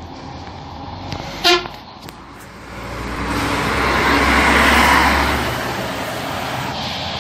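A short horn toot about one and a half seconds in, then an intercity coach bus's engine and tyres growing loud as it drives past close by, easing off as it moves away.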